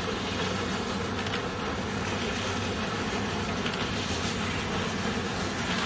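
Union Pacific 3985, a 4-6-6-4 Challenger articulated steam locomotive, working its train across a bridge: a steady mix of exhaust and running noise.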